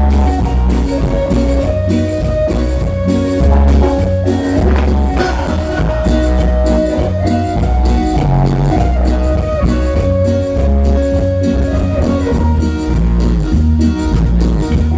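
Band playing an instrumental passage with no singing: a melody in long held notes over guitar, bass guitar and drums keeping a steady beat.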